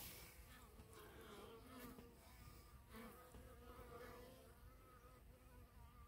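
Faint buzzing of honeybees around the hive and its sugar-water feeder: a thin, wavering hum.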